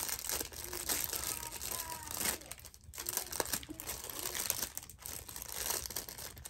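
Small clear plastic packaging bag crinkling in the hands as it is worked open, in uneven rustles.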